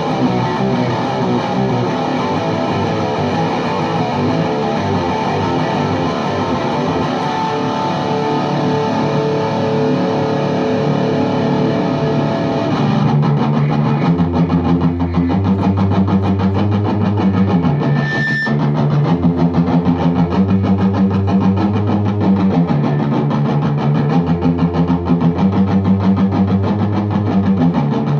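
High-gain distorted electric guitar, a Les Paul Custom through a VHT Deliverance D60 amp into a 4x12 cabinet with V30 speakers. It plays ringing distorted chords for about the first thirteen seconds, then switches to a fast, rhythmic chugging riff on low notes, with a brief high squeal about eighteen seconds in.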